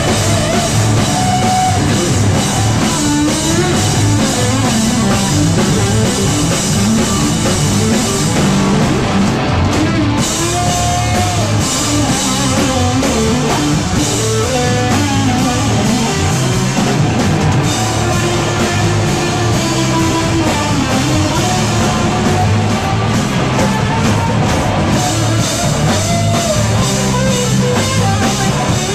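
Live rock band playing loud: electric guitar over a drum kit, continuous throughout.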